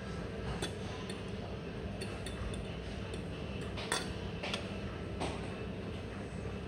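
A metal fork clinking against a ceramic plate as it is set down: a scatter of light clinks, the loudest about four seconds in.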